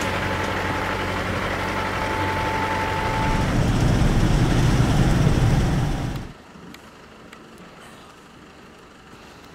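Nissan Navara pickup's diesel engine and road noise while it tows a livestock trailer along a rough track, steady at first with a thin high whine over it, then a heavier low rumble as heard from inside the cab. About six seconds in it stops suddenly, leaving a quiet outdoor background with a few light clicks.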